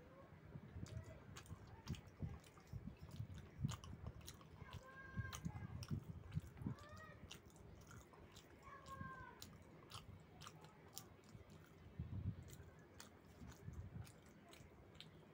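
Person chewing and eating a mouthful of food close to the microphone: quiet, irregular soft thuds and small wet clicks. A few short pitched calls sound faintly in the background around the middle.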